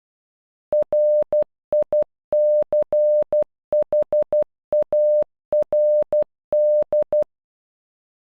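A single steady beep tone keying the Morse code for "RICHARD" (.-. .. -.-. .... .- .-. -..) once at normal speed, in short dots and longer dashes with brief gaps between letters. It starts about a second in and stops about a second before the end.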